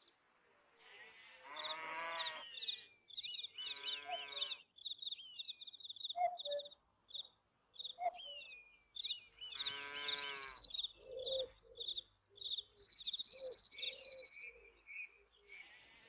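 Farm animals calling three times, about two, four and ten seconds in, each call a long wavering cry. Songbirds chirp and whistle in short high notes throughout.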